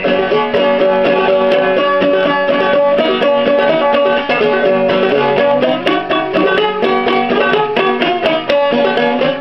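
Five-string banjo played clawhammer style in open G tuning: a steady, rapid stream of plucked notes and brushed strums in an old-time tune.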